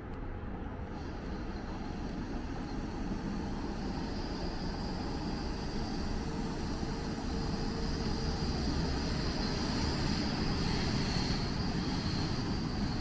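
Train on the Brenner line approaching: steady running noise that slowly grows louder, with a steady high whine coming up in the second half.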